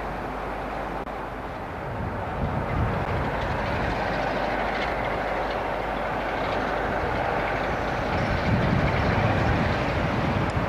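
British Rail Class 47 diesel locomotive's Sulzer twin-bank V12 engine running as the locomotive moves slowly closer, a steady rumble that grows louder and deeper towards the end.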